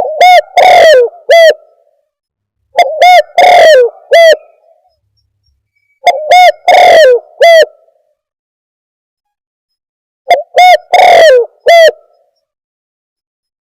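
Spotted dove (tekukur) call played back as a bird-trapper's lure recording: four cooing phrases a few seconds apart, each a couple of short coos around one longer, louder coo, with silence between. The recording is heavily clipped, so the loudest coo in each phrase is distorted.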